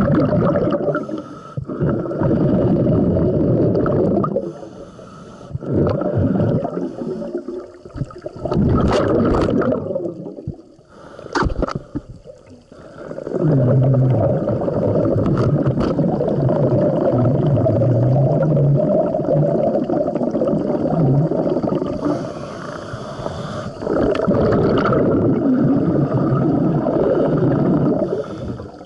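Scuba regulator exhaust bubbles burbling underwater, close to the microphone, in long stretches with quieter pauses in between as the diver breathes in.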